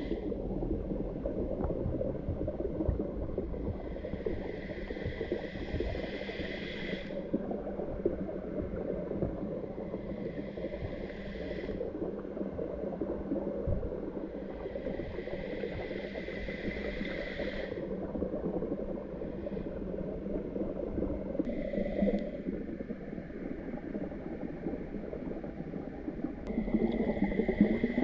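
Water gurgling and bubbling steadily with a low hum, while a higher hiss comes and goes every few seconds.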